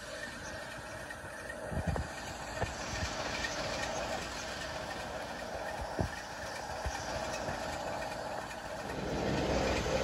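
BR Class 33 diesel locomotive running at low power as it moves slowly past, with a steady engine rumble and several sharp clanks of the wheels over rail joints and pointwork. The engine sound grows louder near the end.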